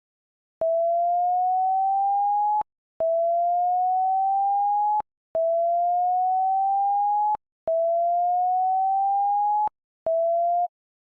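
Electronic sine test tone, the kind used to check or clear a phone speaker, played in four beeps of about two seconds each with a shorter fifth. Each beep slides slowly upward in pitch and starts and stops with a click.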